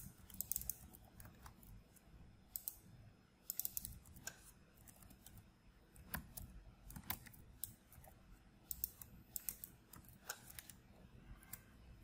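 Faint computer keyboard typing: irregular clusters of keystroke clicks with short pauses between them.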